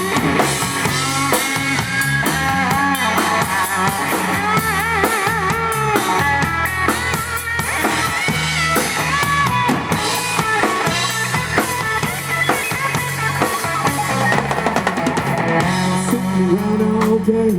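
Live rock band playing an instrumental break: drum kit keeping the beat under a steady bass line, with a lead guitar playing wavering, bent notes.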